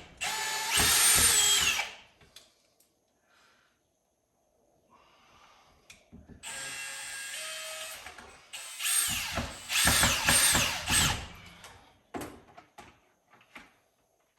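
Power drill driving screws, in three main runs with the motor whine rising and falling: the first two seconds, a steadier run about six seconds in, and a longer one from about nine to eleven seconds, with a short burst just after.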